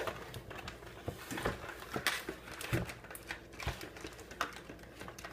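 Plastic action-figure packaging being handled and pulled apart: irregular rustling with scattered small clicks and taps of the plastic.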